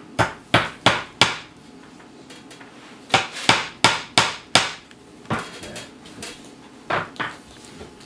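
Hammer tapping nails into wooden boards to start them: four quick strikes, a pause, then five more, and a few lighter taps near the end.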